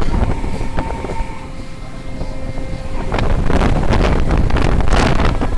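Wind buffeting the microphone and rushing sea noise over the steady drone of a fishing boat's engine. The rushing swells about three seconds in.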